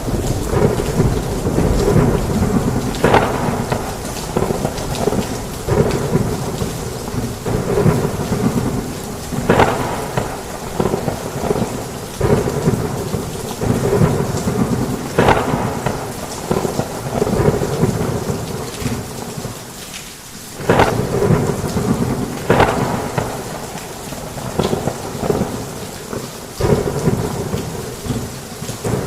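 Heavy rain on a roof with continuous low rumbling thunder. Sharper, louder hits stand out every few seconds, and the rumble drops away briefly about two-thirds through before returning suddenly.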